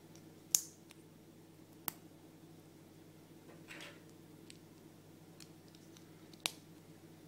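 Small plastic Kinder Surprise figurine parts being handled and snapped together by hand: three sharp clicks, the loudest about half a second in, another just under two seconds in and one near the end, with a brief rustle in between, over a steady low hum.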